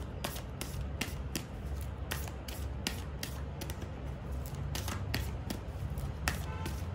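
A deck of tarot cards shuffled by hand, with many irregular sharp snaps and slaps of the cards over a low hum.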